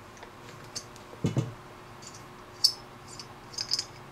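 Small metal tools and parts clicking and ticking as the main jet holder is unscrewed from a Mikuni VM38 carburetor body with an adjustable wrench: a handful of short, sharp clicks, with one duller, louder knock about a second in.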